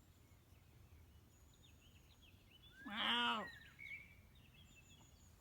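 A single loud call from a bird about three seconds in, lasting about half a second, over faint high chirps of small birds.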